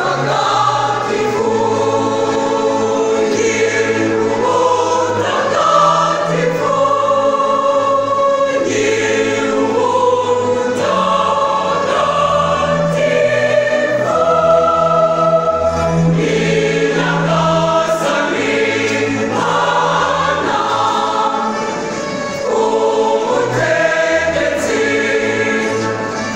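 Mixed choir of women's and men's voices singing a Christian song in several parts at once.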